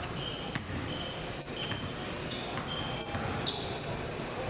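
Basketball play on a hardwood court: sneakers squeaking in several short high chirps and the ball bouncing in scattered thuds, over a steady murmur of the crowd in a large gym.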